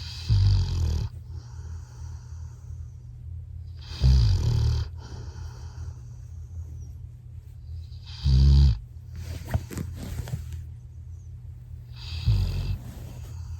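Labrador retriever snoring in its sleep: four loud, low, fluttering snores about four seconds apart.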